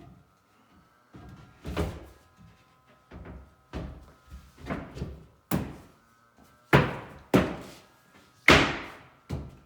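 Wooden cabinet parts being knocked and pressed into place as the glued box is assembled: about a dozen irregular thuds and knocks, the loudest three near the end.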